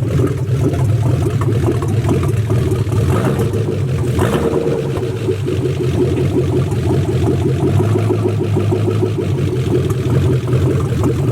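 V8 engine in a Nissan 240SX idling on its own, a loud, gnarly rumble, on its first run after the engine swap.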